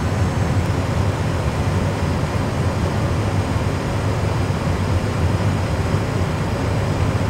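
Steady cockpit noise of an Airbus A320 full flight simulator: a constant low rumble with a rushing hiss over it, the simulated engine and airflow sound of the aircraft flying on its one remaining engine.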